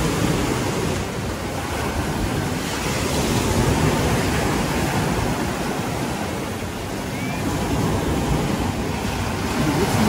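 Sea surf washing in, with wind buffeting the microphone; the noise swells and eases slowly.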